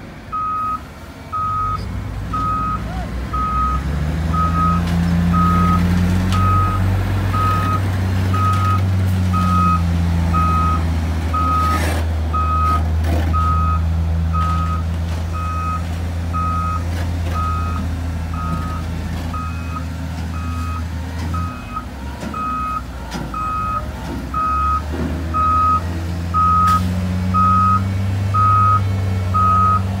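A heavy machine's reversing alarm beeping steadily about once a second, one high tone, over a diesel engine running under load. The engine speeds up a few seconds in and again near the end.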